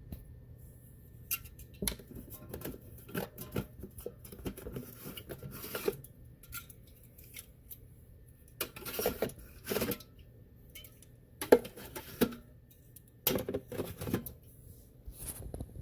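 Irregular clicks, taps and rustles of small objects being handled, in clusters with short pauses between them.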